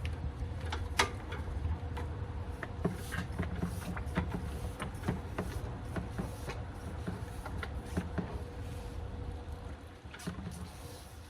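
Scattered light clicks and knocks from handling a hand oil-extractor pump on a lawnmower engine while old oil is sucked out, over a steady low hum.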